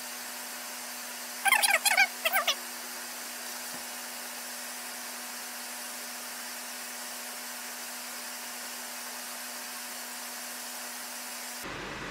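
Steady whirr of a room fan and a kitchen vent hood, with a short run of high squeaky chirps about two seconds in.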